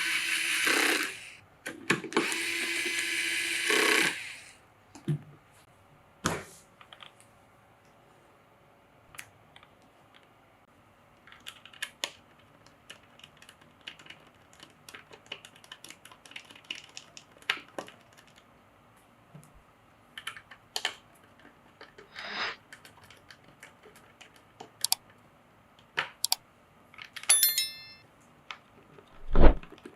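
A small electric screwdriver whirs in two short runs, then scattered light plastic and metal clicks and taps of computer parts being handled and fitted, with one sharper knock near the end.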